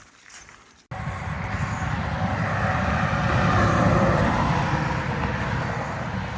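A motor vehicle passing on the highway, its tyre and engine noise swelling to a peak about halfway through and then fading. The sound comes in abruptly about a second in.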